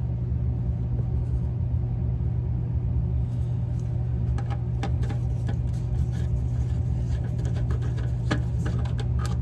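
A steady low machine hum throughout, with light scattered clicks and taps from about three seconds in as a screwdriver works at the screws and wiring on a tankless water heater's igniter plate.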